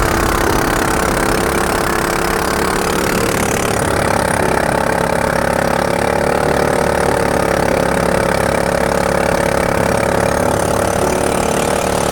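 Boat motor running steadily at a constant speed, its hum wavering slightly in pitch.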